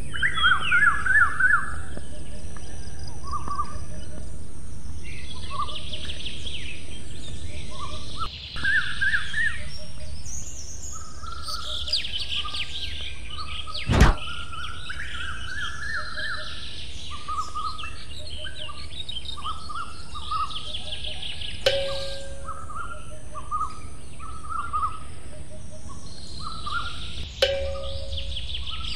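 Small birds chirping and twittering continuously in many short rapid calls, over a steady high hiss. The sound briefly drops out twice, about a third of the way in and near the end, and there is a sharp click about halfway through.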